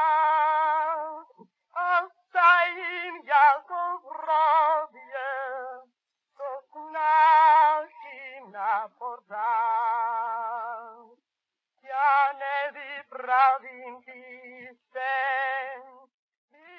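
A solo singing voice with a strong, wide vibrato, sung in short phrases broken by brief pauses; the sound is dull, with no high treble.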